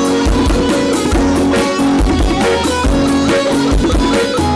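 Live band playing a rhythmic passage straight after a count-in: guitar over drums keeping a steady beat.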